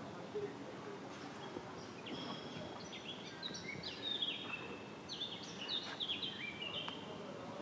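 Small birds chirping over a steady hum of city background noise, with a run of short, high chirps from about two seconds in until near the end.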